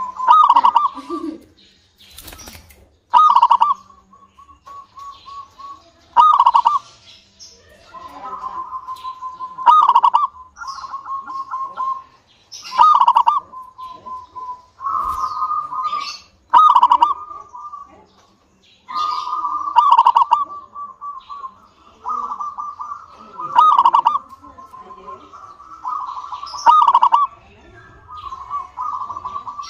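A zebra dove (perkutut) repeatedly singing its cooing song: a held, slightly trilled note ending in a loud rolling coo. About nine phrases come at an even pace, one every three seconds or so.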